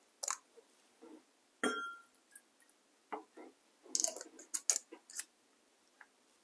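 Glass bottles and tasting glasses clinking and knocking as they are handled on a table. One clink rings briefly about one and a half seconds in, and a quick run of small taps and clicks follows around four to five seconds.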